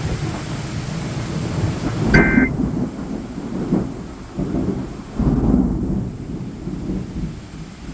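Rain falling steadily while thunder rumbles, with two louder low peals, the first about two seconds in and a longer one about five seconds in.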